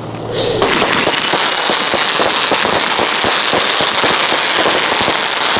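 Consumer fireworks going off as a dense run of rapid pops and crackles that starts about half a second in and keeps going without a break.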